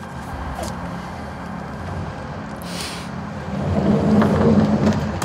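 A road vehicle's engine rumbling, growing louder about three and a half seconds in, with a short hiss just before.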